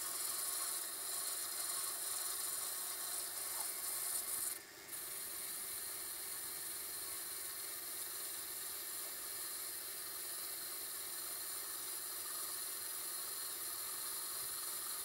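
Metal lathe running with a boring bar cutting the bore of a cast iron cylinder casting: a steady scraping hiss, with a brief drop about four and a half seconds in.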